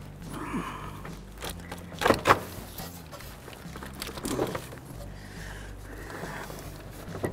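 Handling noise under the hood: gloved hands moving hoses and parts by the radiator, with a couple of short knocks, the clearest about two seconds in, over a steady low hum.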